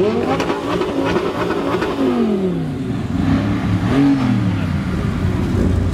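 Performance car engines revved hard at standstill, blip after blip, their pitch rising and falling, with more than one engine sounding at once and a few sharp exhaust pops among the revs.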